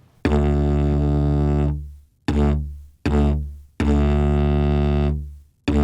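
Didgeridoo playing the drone-attack exercise: a held drone that cuts off, then two short drones that each start clean and sharp on the same low note, then another held drone, and a short drone starting near the end.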